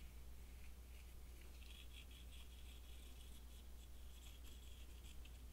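Faint scratching of a plastic adhesive-bottle nozzle brushed back and forth across a silicone rubber piece, spreading a thin coat of adhesive, starting about one and a half seconds in, over a low steady hum.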